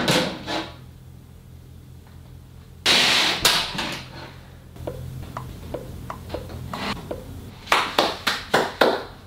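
Light 3D-printed plastic pieces being slid and set down on a floor: a brief scraping swish about three seconds in, then scattered light clicks as parts are placed. Near the end, a quick run of about six hand claps.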